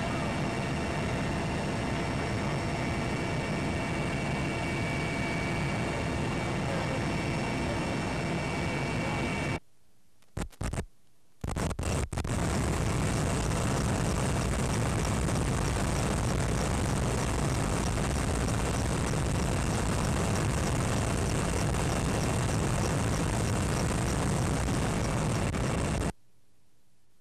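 Helicopter cabin noise in flight: engines and rotor running steadily with a constant whine. It cuts out abruptly about ten seconds in, returns with a few brief blips and then steadily at about twelve seconds, and cuts out again near the end.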